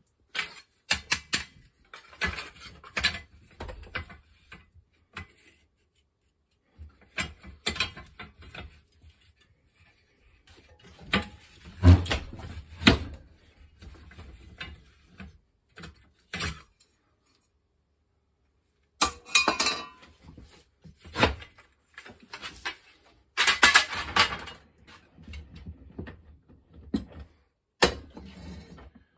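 Metal clanking, rattling and knocking as a steel plate and metal clamps are handled at a steel bench vise: clamps set and taken off, the plate shifted in the jaws. The sounds come in irregular clusters of sharp knocks with short quiet gaps.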